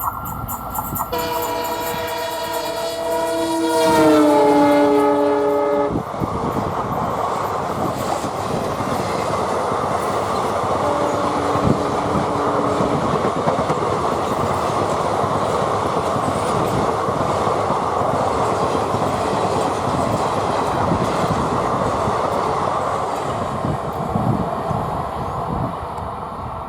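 WDG4 diesel locomotive sounding its multi-note horn in one long blast as it passes, the chord dropping in pitch as it goes by, followed by a short second honk about eleven seconds in. The express's coaches then roll past with a steady clickety-clack of wheels on rail.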